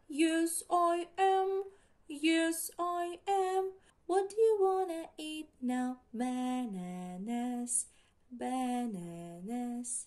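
A woman singing a children's song without accompaniment, in short phrases with brief pauses between them, stepping down to a low note and back up twice in the second half.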